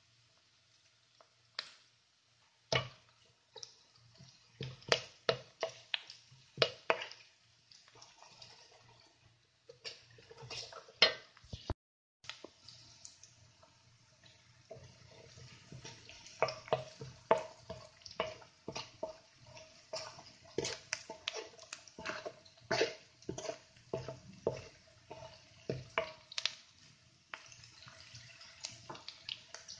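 Chopped red onion frying in oil in a pan, with sizzling and many irregular sharp clicks and taps as a wooden spoon stirs it against the pan; the clicks come thicker in the second half.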